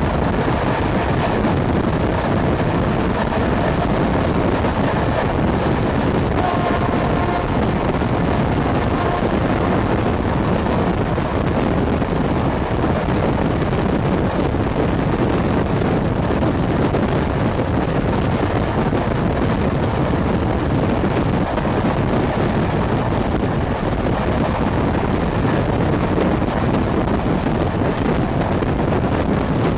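Steady rush of wind and rolling noise from a passenger train carriage running at speed, heard at an open carriage window with wind on the microphone.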